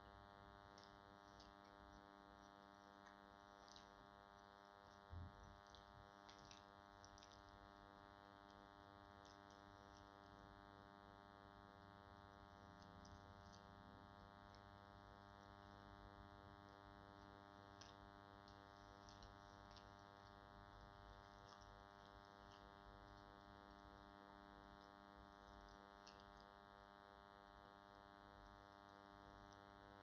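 Faint, steady electrical buzz from a faulty microphone, a hum made of many even tones, with a few faint clicks on top and one soft thump about five seconds in.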